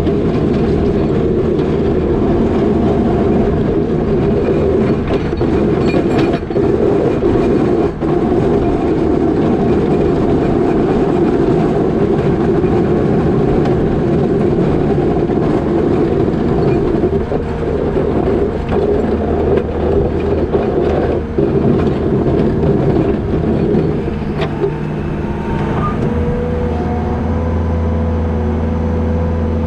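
New Holland L220 skid steer's diesel engine running hard while pushing wet snow with a box plow, with a rough, rattling clatter over it. Near the end the clatter drops away and the engine settles into a steadier hum.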